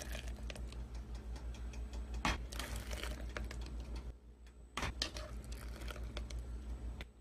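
Table knife scooping mayonnaise and scraping and tapping against the jar and pot: a few sharp clicks and soft wet scrapes over a steady low hum.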